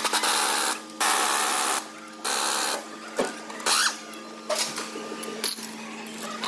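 Pneumatic impact wrench run in three short bursts, each under a second, spinning off the top nut of a car's front strut assembly to strip out a failed shock absorber.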